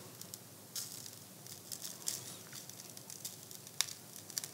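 Dry spice rub sprinkled over raw poussins, with hands handling the birds on a plate: faint soft pattering with a few scattered small ticks.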